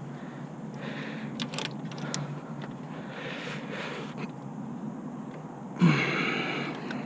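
A man breathing hard while straining with a wrench on a belt tensioner, ending in a loud strained grunt that falls in pitch near the end. A few light clicks from tools.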